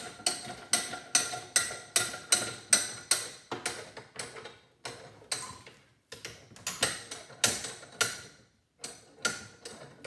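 Sharp, ringing metallic clinks as a flathead screwdriver works against the metal outer shell of a vacuum cleaner motor clamped in a vise, prying it loose. The clinks come evenly at about two and a half a second, stop briefly about three and a half seconds in, then resume more irregularly with short pauses.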